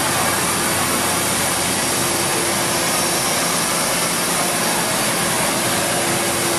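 Loud, steady hiss of steam in a steam locomotive's cab, unbroken and even, with a faint steady tone joining it about two seconds in.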